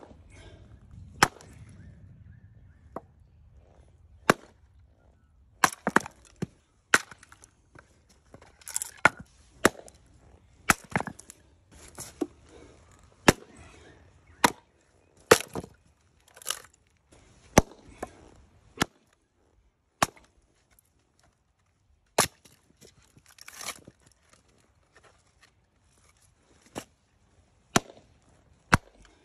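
Fiskars Mini Maul chopping into wood rounds to split them: about two dozen sharp, separate strikes, roughly one a second with a few short pauses, and fainter rustle between some of them.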